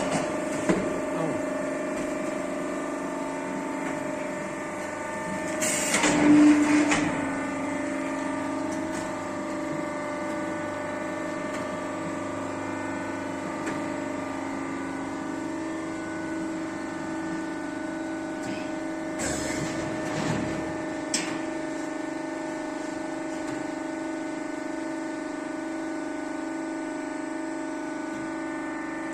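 Hydraulic silage-corn bagging machine running with a steady hum of several pitched tones from its motors. A louder, noisy burst of machine clatter comes about six seconds in, and a few shorter sharp knocks come around twenty seconds in.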